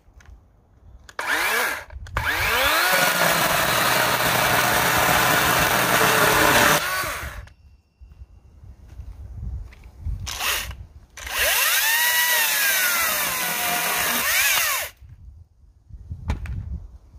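Two cordless brushless chainsaws run in turn with no load, chains spinning free. The DeWalt 12-inch gives a quick blip, then spins up with a rising whine and runs steadily for about five seconds before stopping. After a pause the Makita 10-inch top-handle blips, then whines up and winds back down over about four seconds.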